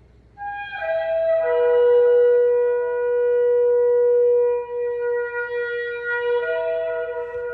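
Shofar (ram's horn) blown in long held blasts. A short note slides down in pitch, a long steady lower note follows, and near the end the pitch steps back up.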